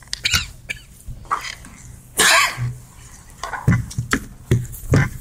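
A person coughing and clearing the throat several times, the longest cough about two seconds in, with a few short low knocks near the end.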